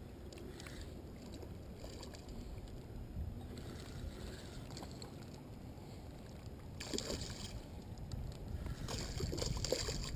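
A hooked chain pickerel splashing at the surface in shallow water, in short bursts about seven seconds in and again near the end, over a steady rumble of wind on the microphone.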